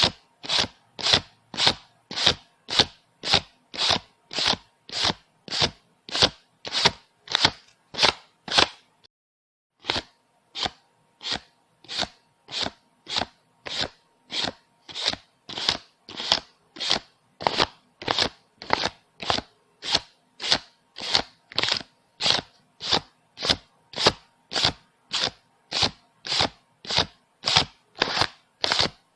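Paper bills being counted one at a time, each note giving a crisp papery snap, about two a second in an even rhythm, with a pause of about a second roughly nine seconds in.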